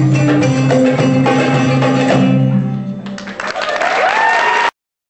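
A live band with lute and hand drum plays the closing bars of a piece, then the music fades and the audience starts clapping, with a high drawn-out call rising over the applause. The audio cuts off suddenly near the end.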